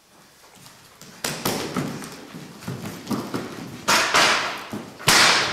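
Bare feet stamping and landing heavily on a wooden stage floor: a run of sudden thuds with a short echo, the loudest near the end.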